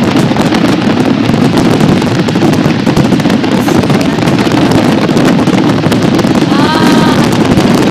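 A dense, loud fireworks barrage: many shells bursting in quick succession, their bangs and crackles blending into a continuous rumble. About seven seconds in, a short tone rises and falls over it.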